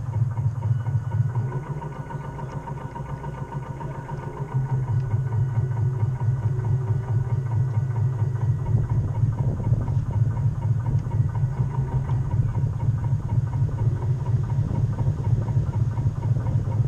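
The model boat's drive motor runs with a steady low drone. It eases off about a second and a half in and picks up again about four and a half seconds in.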